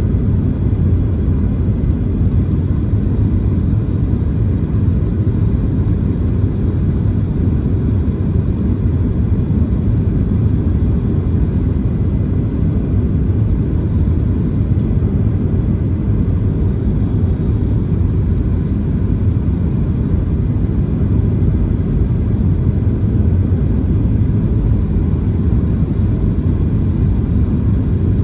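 Steady low rumble of a Boeing 737-700's CFM56-7B engines and rushing airflow heard inside the passenger cabin on final approach, flaps extended.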